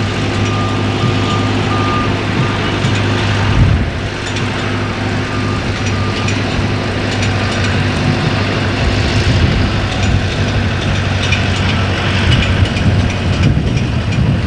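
A heavy vehicle's engine running steadily, with a reversing alarm beeping during the first few seconds. After about four seconds the engine hum fades into a steady wash of outdoor noise with scattered small knocks.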